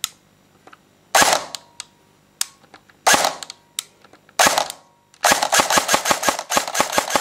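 ARES L1A1 SLR airsoft electric gun (AEG) firing semi-auto. Three single shots come a second or two apart, then a fast even string of about fifteen shots, about six a second, as the trigger is worked as quickly as its reset allows.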